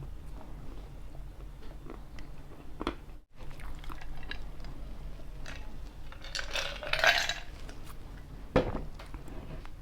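Close-miked eating sounds of someone chewing pizza, with faint small mouth clicks. About two-thirds of the way through comes a louder noisy rustle lasting about a second, and shortly after a single sharp knock, like a cup or utensil set down on the table.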